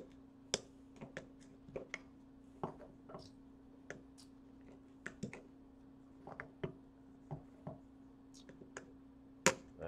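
Irregular sharp clicks and small cracks of a glued-on plastic LED bulb cover being pried and chipped with a flat blade while the bulb is clamped in slip-joint pliers, over a faint steady hum. The loudest crack comes near the end.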